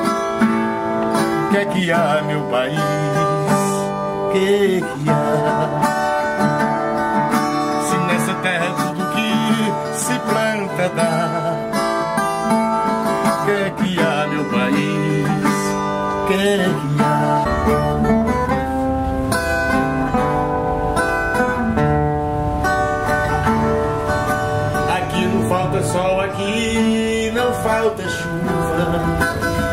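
Background music: an instrumental stretch of a song led by plucked guitar strings, with a deeper bass part joining a little past halfway.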